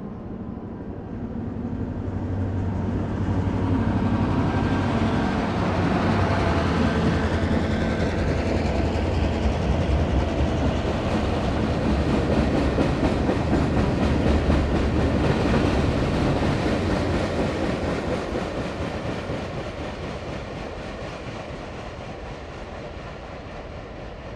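EMD SD38-2 diesel-electric locomotive, with its non-turbocharged 16-cylinder engine, leads a train past with a deep engine hum and the wheels running on the rails. It grows loud within a few seconds, stays loud for about ten seconds, then fades as the train draws away.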